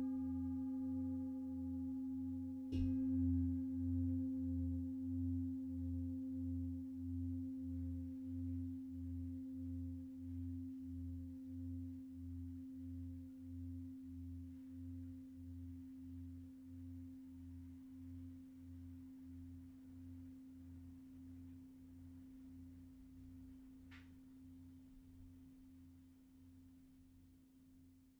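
Large hammered singing bowl struck with a padded mallet about three seconds in, on top of the ring of a strike just before. Its deep hum wavers in an even pulse, about one and a half beats a second, and slowly fades away. A faint click near the end.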